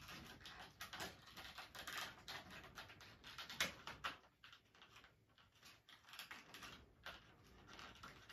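Faint, irregular clicks and rustles of something being handled close by, scattered through the whole stretch.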